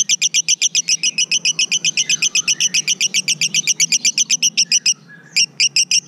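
A male Fischer's lovebird singing in the long, unbroken 'konslet' style: a fast run of sharp, high chattering notes, about eight or nine a second. The run breaks off for about half a second near the end, then picks straight up again.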